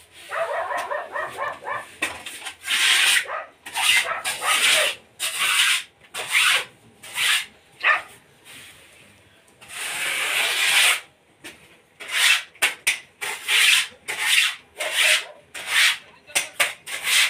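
Irregular rustling and rubbing noises in short bursts, some lasting about a second, with a few short pitched sounds in the first two seconds.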